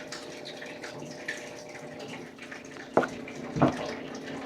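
Steady running-water-like noise with a faint hum underneath, and two short knocks about three seconds in, half a second apart.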